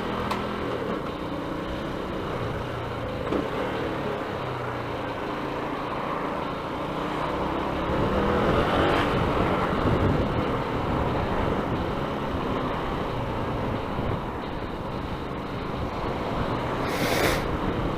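Yamaha YZF-R125's 125cc single-cylinder four-stroke engine running as the motorcycle is ridden in traffic, its pitch shifting with the throttle, under rushing wind noise that swells louder midway. A short hiss comes near the end.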